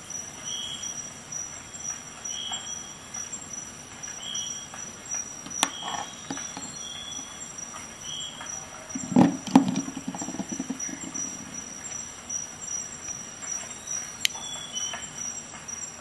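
Sharp metallic clicks from a multi-tool being handled, with the loudest clack and a short rattle about nine seconds in. A faint high chirp repeats about every two seconds behind it.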